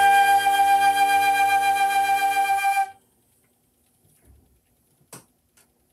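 Concert flute holding a long final note over the sustained closing chord of a karaoke backing track, both stopping together about three seconds in. A few faint knocks follow as the flute is lowered.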